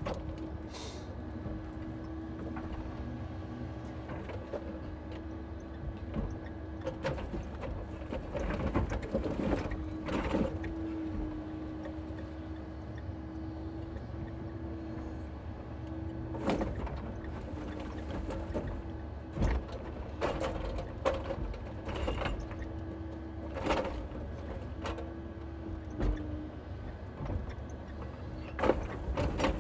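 Scania timber truck's engine and hydraulic crane running steadily, with a humming whine that dips slightly in pitch now and then. Irregular knocks and clunks of birch logs being handled in the grapple break through it every second or few.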